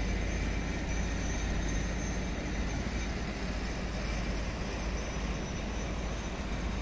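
Steady rushing of river water spilling over a weir, under a steady low rumble.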